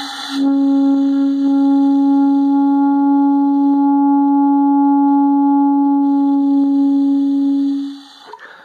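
A bass clarinet mouthpiece and reed on the instrument's neck alone, blown without the body. It starts as an airy hiss and settles about half a second in into one steady held note. The note lasts about seven and a half seconds with a light hiss still under it, then stops.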